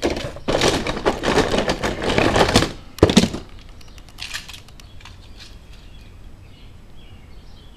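Die-cast toy cars being rummaged through and handled: about two and a half seconds of dense clattering and rustling, a sharp click about three seconds in, then faint small handling sounds.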